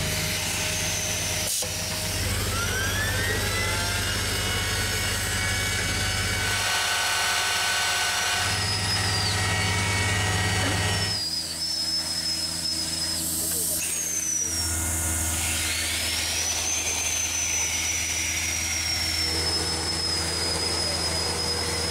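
Construction-site machinery running: a steady low hum under high motor whines. One whine rises about two seconds in and another about fifteen seconds in, each levelling off into a steady tone. The sound changes abruptly several times.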